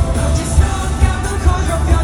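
Loud live pop music over a concert sound system, with singing over a steady heavy drum beat.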